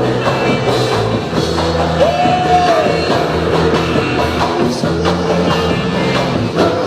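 Christian rock band playing live, with a drum kit keeping the beat under guitars.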